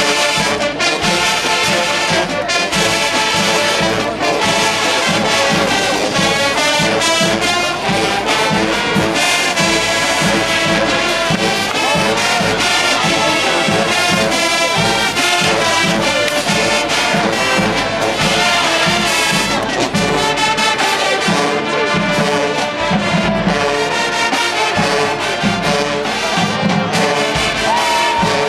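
HBCU marching band playing: a full brass section of trumpets and trombones over a steady beat of drums.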